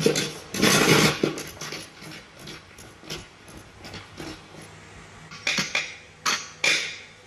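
Metal parts clinking and knocking in irregular clusters, a busy clatter in the first second or so and a few sharp knocks near the end, like gearbox parts and hand tools being handled on a workbench.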